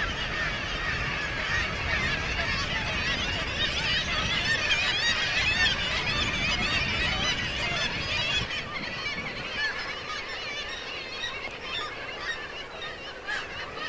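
Black-legged kittiwake nesting colony calling: many birds crying at once in a dense, overlapping chorus. A low rumble runs underneath and eases after about eight seconds.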